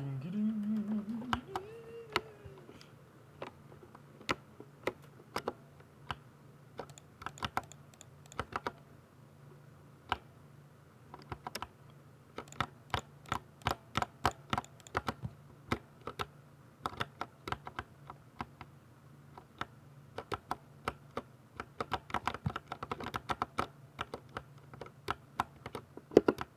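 Typing on a Ducky 60% mechanical keyboard with silver switches: rapid key clicks and clacks in irregular bursts with short pauses.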